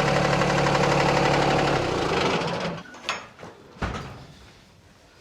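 Tractor engine idling steadily, then dying away about two and a half seconds in, followed by two sharp knocks.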